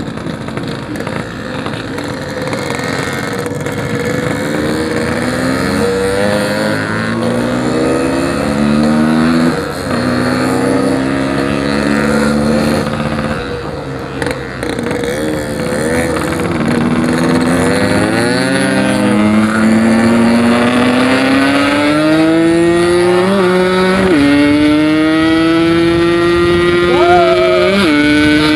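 Yamaha RX-King's 135cc two-stroke single-cylinder engine accelerating through the gears while riding. The pitch climbs steadily, drops sharply at each of several shifts, then climbs again.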